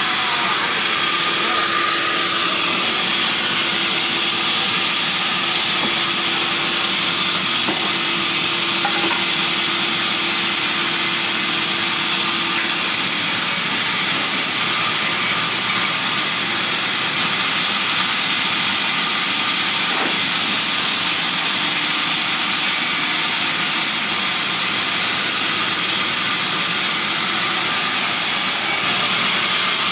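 A woodworking power tool running steadily, a continuous hiss with a high-pitched whine that does not change.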